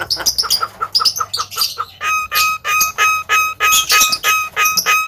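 Javan myna calling: quick chattering notes, then from about two seconds in a steady run of repeated ringing notes, about three or four a second.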